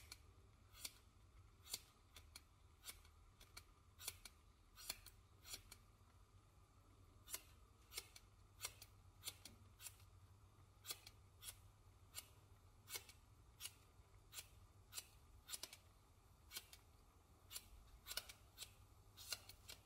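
Scissors snipping through a hank of hair, a run of short, sharp snips at an irregular pace of about one every half second, some in quick pairs.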